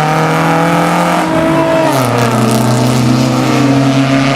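Car engine running hard under throttle; its pitch dips about two seconds in and then climbs again.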